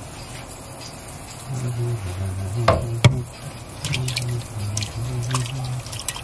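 Raw shrimp being poured from a metal bowl into a pot of hot seafood-boil broth: splashing and dripping liquid, with two sharp knocks about three seconds in.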